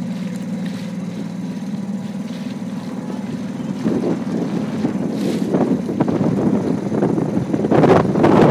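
A small boat's motor running at a steady low speed, with a rushing noise of wind on the microphone building from about halfway and loudest near the end.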